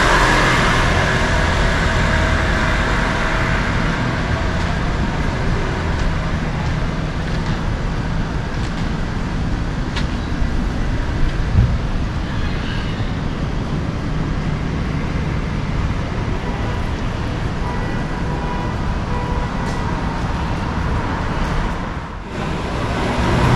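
City street traffic noise: a steady rumble of passing cars and engines, with a short thump about halfway through.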